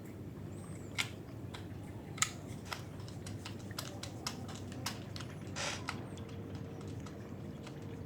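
A handful of light, separate clicks and taps at irregular intervals, with a brief hiss about five and a half seconds in, over a steady low hum.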